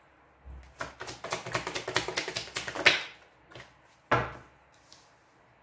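A deck of tarot cards shuffled in the hands: a quick run of card flicks for about two seconds, then a single card laid down on the table about four seconds in.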